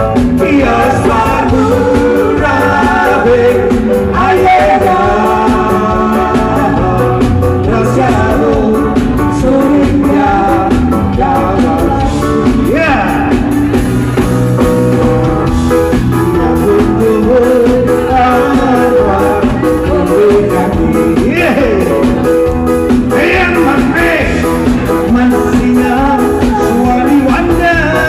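Live singing into a microphone through a PA system, over a live band accompaniment with drums.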